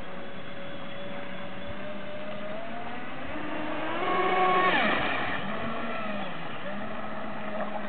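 Aquacraft SuperVee 27R radio-controlled boat's brushless electric motor whining as the boat runs across the water. About four seconds in it grows louder and rises in pitch as the boat passes close by, then the pitch drops sharply as it moves away, leaving a steady whine.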